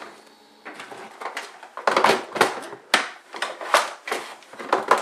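Vacuum-sealed bags of cartridges and other items being handled and packed into a plastic MTM ammo can: plastic crinkling, rattling and a run of sharp knocks against the can, loudest from about two seconds in.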